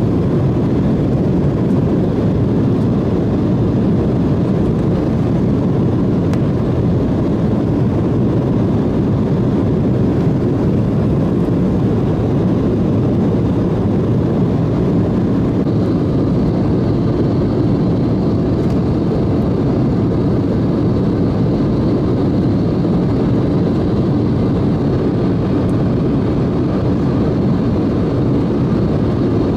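Steady cabin noise of an Embraer E175 twin-engine jet in flight: a low, even mix of engine and airflow noise. A faint high tone comes in about halfway through.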